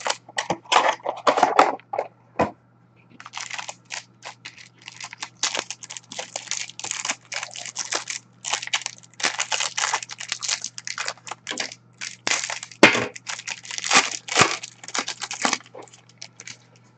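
Packaging being torn open and crinkled by hand: a trading-card box's wrapper and packs ripped open, with many irregular crackling rustles.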